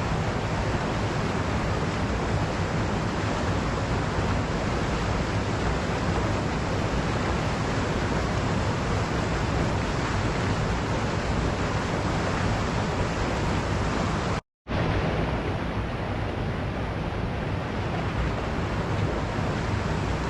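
Waterfall: a steady, even rush of falling water. The sound cuts out completely for a split second about two-thirds of the way through, then resumes.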